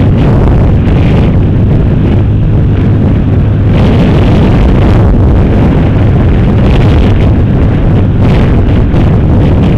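Sport motorcycle riding at a steady road speed: wind rumble buffets the camera's microphone over the running engine, loud and continuous.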